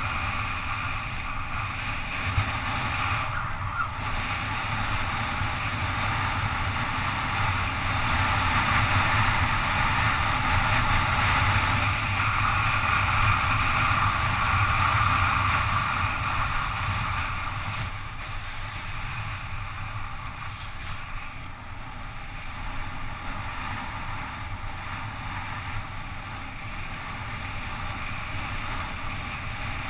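Wind rushing over a helmet-mounted GoPro camera on a bicycle descending at speed, mixed with tyre noise on asphalt. The rush swells through the middle and eases a little after about eighteen seconds.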